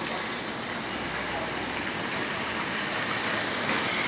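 Steady street traffic noise, an even hum of vehicles on the road, growing slightly louder near the end.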